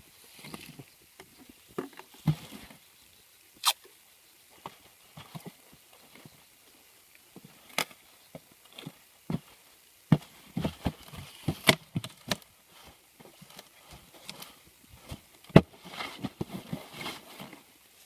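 Handling of a foam box while packing tape is cut with scissors and pressed on to seal its lid: scattered irregular clicks, taps and short rustles.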